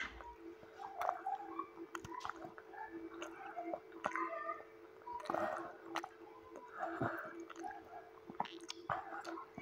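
A child chewing and slurping noodles, with small wet mouth sounds and light clicks of a fork against the plate, spaced irregularly, over a faint steady hum.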